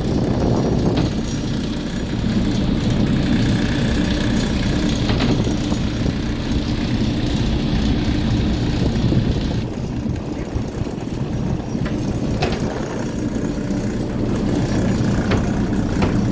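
Motorboat engine running steadily under way, a low rumble mixed with the wash of water.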